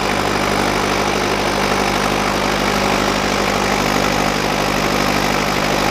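Mahindra 585 DI XP Plus tractor's four-cylinder diesel engine running steadily as its rear tyre spins and digs itself down into the sand, with a steady hiss over the engine.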